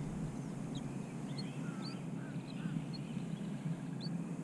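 Wind rumbling on the microphone, with scattered short bird chirps and calls over it.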